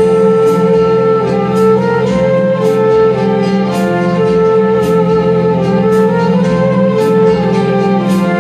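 Flugelhorn playing a slow, held melody over a recorded backing track with a steady beat.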